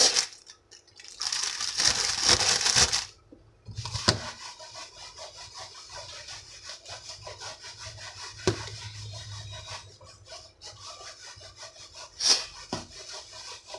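Fish pieces and dry fish-fry batter mix being shaken in a lidded plastic food tub to coat the fish. A loud rush of shaking comes about a second in, then steady back-and-forth rubbing and scraping with a few sharper knocks.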